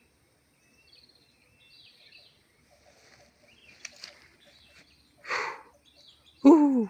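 Faint bird chirping in a forest, with a short hiss-like rustle about five seconds in. Near the end comes the loudest sound: a brief, low, voice-like call that drops in pitch.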